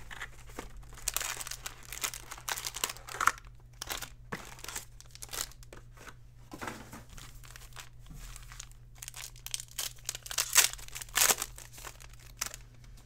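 Foil trading-card pack wrappers crinkling in repeated bursts as packs are handled by hand and one is torn open.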